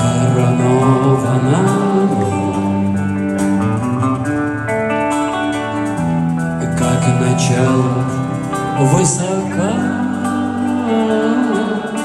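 Live band music in a large arena: a slow song played on acoustic guitar over long held chords.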